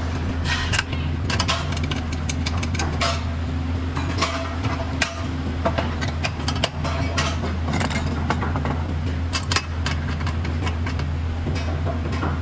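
Irregular metallic clicks and clanks from a steel tractor seat frame being worked by hand at its adjustment lever and slide rails, over a steady low hum.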